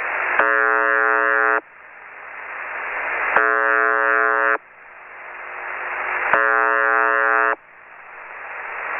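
UVB-76, the 'Buzzer' shortwave radio station: a short, monotonous buzz tone, each about a second long, sounds three times about three seconds apart. Between the buzzes, shortwave static hiss swells steadily louder.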